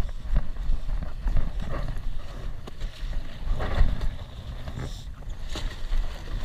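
Water rushing and splashing along the hull of a 5o5 sailing dinghy under way, with wind buffeting the microphone as a steady low rumble. Irregular louder splashes come about a second and a half in and near the middle.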